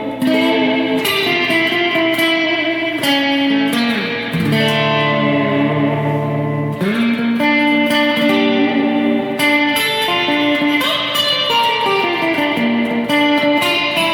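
Fender Jazzmaster electric guitar played through the Surfyman Brownface amp-emulator pedal and a Surfy Bear Classic spring reverb, a clean surf tone with long sustain. It plays single-note lines with slides, a held low chord about four seconds in, and a run of notes stepping down near the end.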